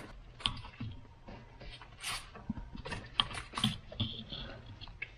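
Light, irregular metallic clicks and knocks of parts being fitted by hand at a manual transmission's snout and clutch release fork, as the greased throwout bearing is worked into place.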